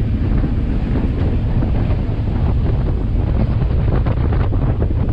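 Steady low drone of a passenger ferry's engine under way, with wind buffeting the microphone.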